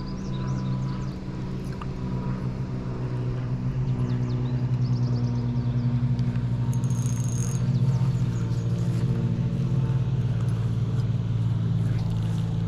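A motor running steadily with a low, even hum that grows a little louder a few seconds in, with small birds chirping faintly over it.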